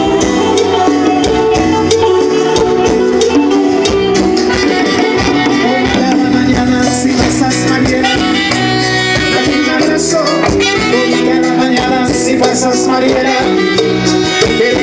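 Live Latin dance music from an amplified band, with guitars, saxophones, bass and a shaker rhythm, played loud and continuous.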